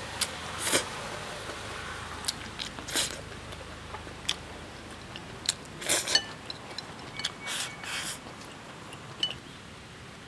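A person eating rice and pork belly close to the microphone: chewing and mouth sounds, with several short sucking slurps as food is pushed from the bowl's rim into the mouth. Light clicks of wooden chopsticks against the ceramic bowl are scattered between them.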